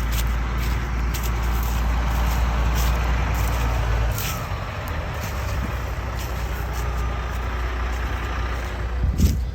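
A vehicle or heavy machine running, with a steady low rumble that drops off about four seconds in, and a single thump near the end.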